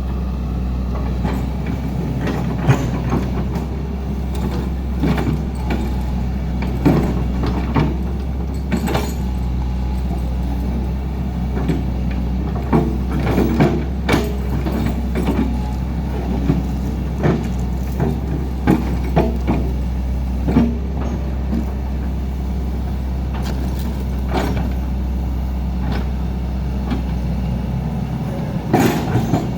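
Heavy diesel machinery running steadily, with frequent short knocks and clanks over the engine drone.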